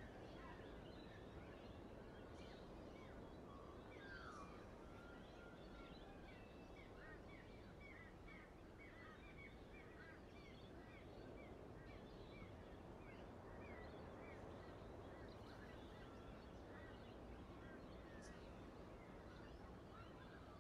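Near silence with faint background hiss and distant birds calling: scattered short chirps, with a long run of quick repeated chirps in the middle.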